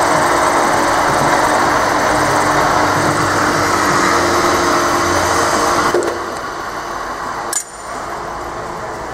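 Drill press running as the bit is fed down into a workpiece clamped in the machine vise: a loud, steady cutting and motor noise. About six seconds in the cutting stops and the sound drops to the quieter running of the machine, with one sharp click shortly after.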